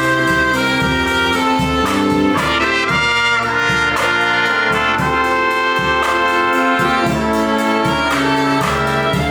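Live brass band playing: held brass chords over a moving bass line, with light percussion keeping the beat.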